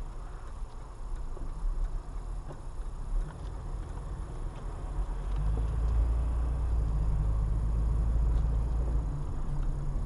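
Car on the road: a steady low rumble of road and engine noise, growing louder about five seconds in.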